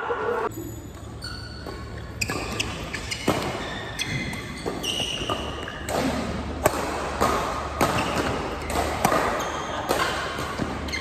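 Badminton doubles rally: a quick run of sharp hits as rackets strike the shuttlecock, mixed with the players' footfalls and shoe squeaks on the court mat.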